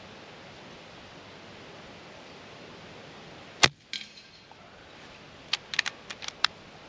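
Kral Puncher Breaker PCP air rifle firing once with a sharp crack, with a fainter knock a moment later. About two seconds after, a quick run of metallic clicks as the side lever is cycled to re-cock it and index the next pellet.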